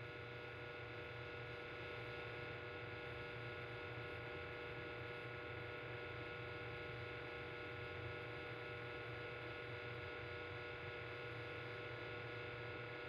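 Electric fan heater running: a faint, steady low hum with several thin, constant whining tones above it.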